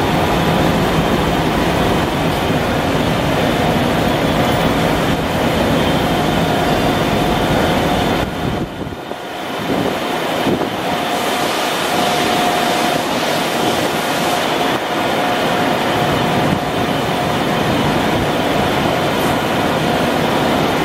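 Loud, steady industrial machinery noise with a faint steady hum running through it. It dips and thins briefly about nine seconds in.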